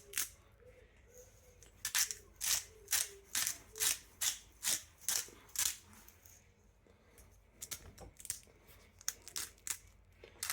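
Salt and pepper being ground and shaken onto a beef brisket: a run of short scratchy strokes, about two a second, pausing briefly about six seconds in and then resuming.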